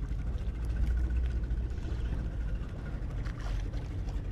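Low, steady rumble of wind and water lapping against a small outrigger fishing canoe at sea, with a few faint splashes or clicks in the second half.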